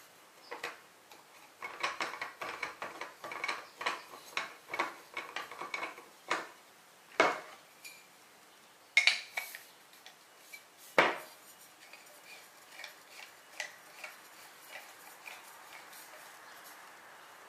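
Wooden pole and metal clips of a Zempire Kitpac spike table being handled as the spare pole is worked free of the tabletop: a run of light clinks and rattles, then three sharp knocks spread through the middle, thinning to a few soft ticks near the end.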